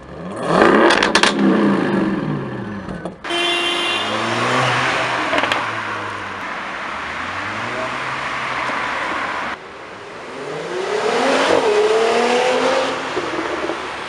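Car engines through their exhausts in three quick clips. First a parked car is revved hard with a few sharp crackles. Then a car accelerates past, and near the end another pulls away with a rising engine note.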